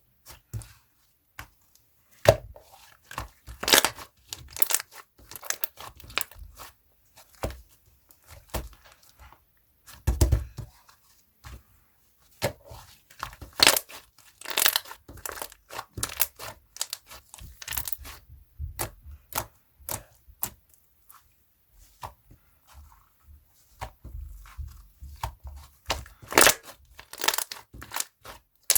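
Slime being mixed and kneaded by hand, giving off an irregular run of sticky pops and crackles with short pauses in between.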